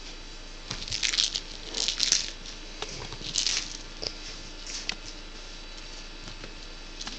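A cat playing with a small toy on an upholstered chair: irregular bursts of crinkling, rattling rustle with a few sharp clicks, fewer and fainter after about four seconds.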